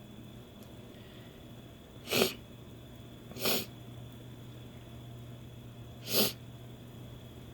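A woman sneezing three times, short sharp sneezes with a gap between each, the second a little weaker. The sneezes are brought on deliberately with a nasal irritant.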